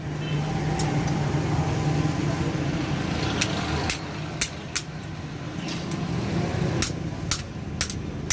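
A steady motor hum from workshop machinery, with about ten sharp taps or clicks at irregular intervals, most of them in the second half.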